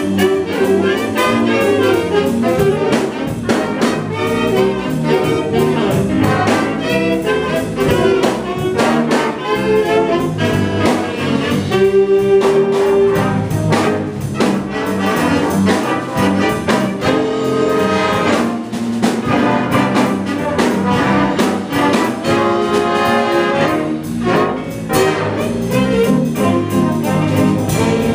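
Student jazz band playing live: saxophones, trumpets and trombones together in a steady ensemble passage of held chords.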